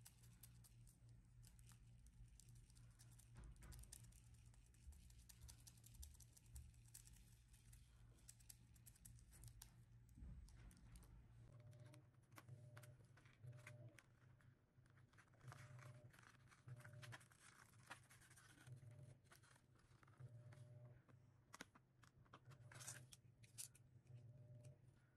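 Faint paper and plastic handling: scattered light scratches, ticks and peeling or tearing rustles, over a low steady hum.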